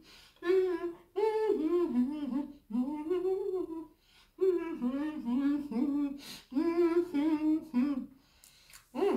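A woman humming a tune through closed lips while chewing a mouthful of boiled egg, in about five short melodic phrases with brief pauses between them.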